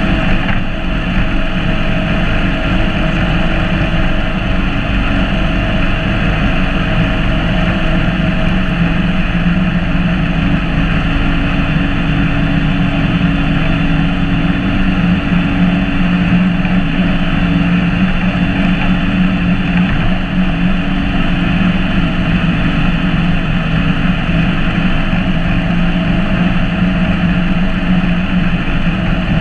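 John Deere X728 garden tractor engine running steadily close up while the tractor drives along with a log held in its front grapple.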